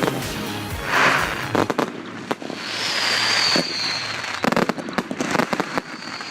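Fireworks going off: a burst about a second in, then a high whistle that falls slightly in pitch, then a run of sharp crackles, with music playing underneath.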